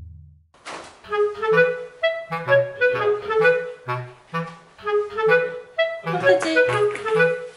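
Background music: a light, bouncy tune of short woodwind-like notes over a bass line, starting about half a second in. A low boom from the title card is still fading out at the start.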